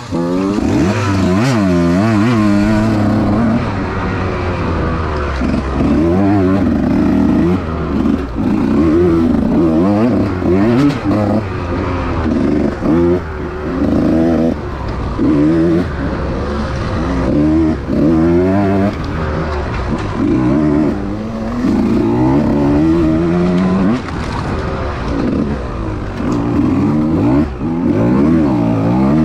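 Small-bore two-stroke enduro dirt bike engine revving up and down over and over, each climb in pitch lasting a second or two, as the throttle is worked and the gears changed.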